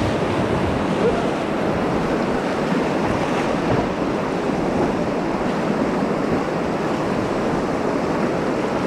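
Wenatchee River current rushing steadily around a drifting raft, with wind buffeting the microphone.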